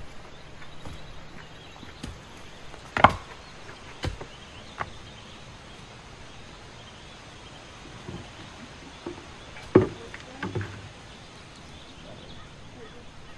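A shovel blade and stones knocking during digging: a handful of sharp clinks and thuds, the two loudest about three seconds in and just before ten seconds in.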